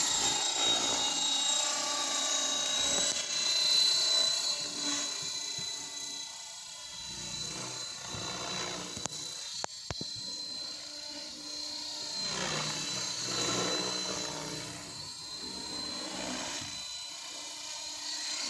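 ALZRC Devil X360 electric RC helicopter flying: the high whine of its electric motor and the buzz of its spinning rotor blades. Loudest in the first few seconds, then softer and rising and falling in pitch and loudness as it moves about the sky.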